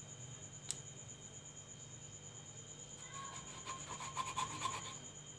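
A small steel tin pressed and twisted through thinly rolled semolina dough against the board, cutting out golgappa rounds. Its rim makes a run of faint scraping, rubbing strokes a few seconds in, with one light click about a second in.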